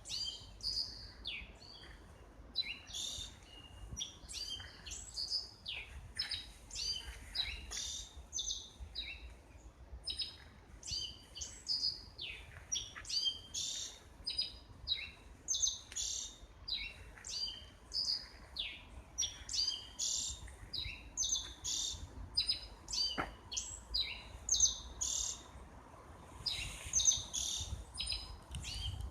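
Small birds chirping and calling: many short, high notes and brief trills follow one another without a break, several a second.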